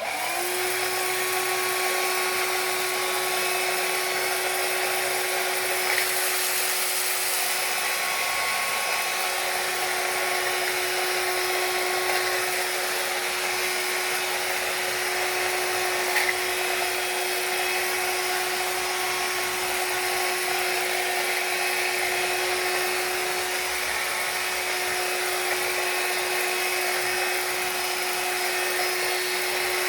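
SilverCrest SHSS 16 A1 2-in-1 cordless stick vacuum cleaner switched on, its motor spinning up within half a second to a steady high whine over a rushing hiss of air. It keeps running without change, with a few brief ticks from something sucked up or knocked.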